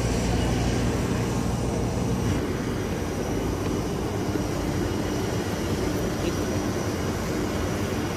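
Steady drone of aircraft engines running on an airport apron, with a steady hum underneath. The pitch of the hum changes about two seconds in.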